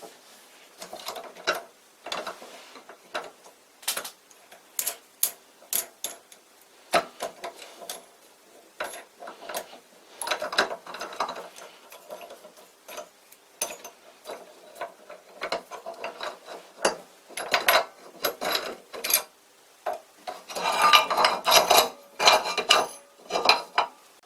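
Metal parts being handled and fitted in a workshop: irregular sharp clicks, clanks and rattles of steel on steel, busiest near the end.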